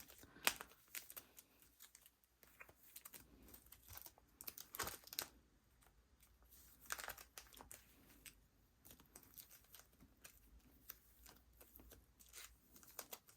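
Faint rustling and crinkling of cards and plastic sleeves being handled and slipped into a binder, with scattered soft clicks and taps; a few louder rustles stand out, near five and seven seconds in.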